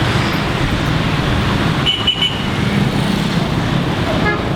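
Street traffic running steadily, with a short high-pitched double beep about two seconds in.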